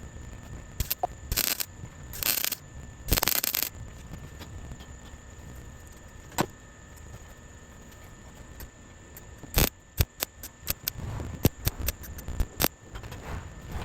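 Welder tacking a patch into a car's transmission tunnel: several short crackling bursts under a second each, then a run of quick sharp pops and clicks near the end.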